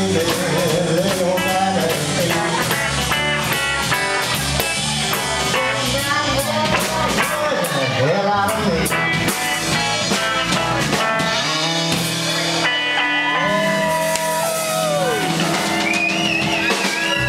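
Live blues band: Telecaster-style electric guitar playing lead over electric bass and drum kit. About twelve seconds in the busy drumming falls away and long held guitar notes ring out, as at the close of a song.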